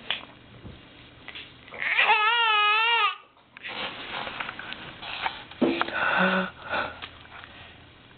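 Baby vocalising: a loud, high, wavering squeal about two seconds in that lasts about a second, followed by softer breathy noises.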